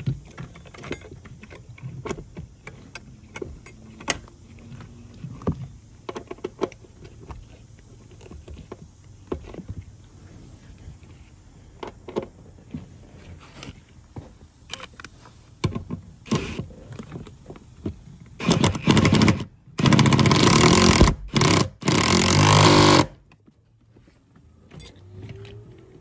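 Light clicks and metallic clinks of parts and tools being handled around a seat belt retractor, then a power tool running in three loud bursts over about five seconds, driving the retractor's mounting bolt.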